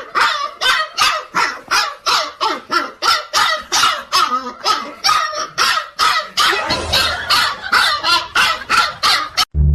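A dog barking over and over in quick succession, about three barks a second, until it cuts off abruptly near the end.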